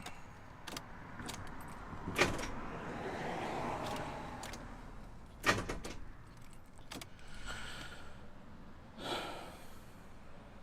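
Scattered sharp clicks and knocks with a metallic jingle of keys, the loudest knocks about two and five and a half seconds in.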